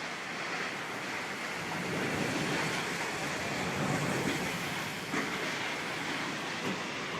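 Steady rushing storm noise, as of strong wind, swelling between about two and four seconds in and easing after.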